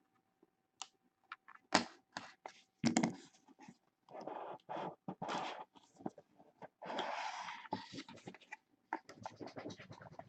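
Trading-card box and pack packaging being opened and handled: crinkling, rustling wrapper and cardboard in irregular bursts, with sharp clicks and scrapes.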